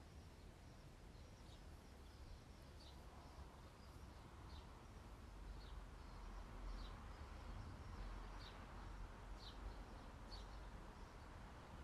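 Faint background ambience: short high chirps, like a small bird, about once a second over a low rumble.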